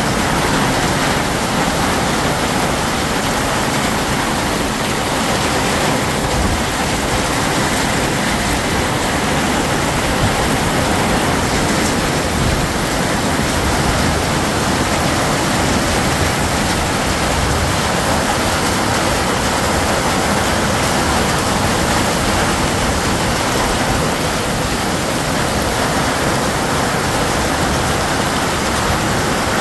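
Heavy rain pouring down on a flooded street: a loud, steady, dense hiss.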